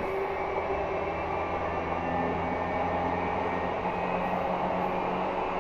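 E235-1000 series electric train heard from inside a motor car, running at a steady speed between stations. Wheels rolling on the rails give a steady rumble, with an even hum from the traction motors and gearing.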